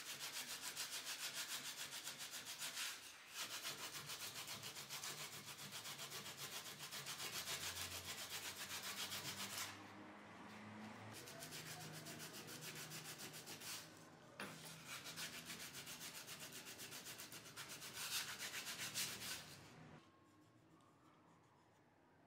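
Sandpaper rubbed by hand in rapid back-and-forth strokes over a wooden board, sanding a hardened super-glue-and-cotton screw-hole filling flush. It goes quieter for a few seconds about halfway through, picks up again, and stops a couple of seconds before the end.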